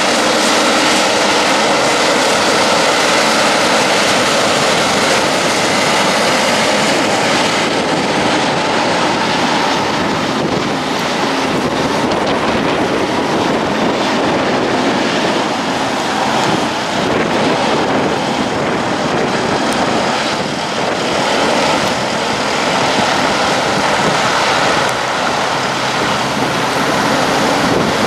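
Diesel engines of heavy-haulage trucks, a Mack Titan pull truck and a Kenworth K200 prime mover, pulling a heavy oversize low-loader past, mixed with tyre and trailer noise. The sound is a steady, loud engine drone that eases slightly in the middle as the load rolls by.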